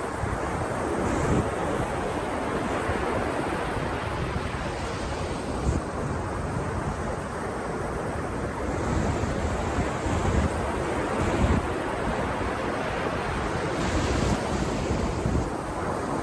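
Ocean surf washing steadily onto a beach, with wind buffeting the microphone in low rumbling gusts.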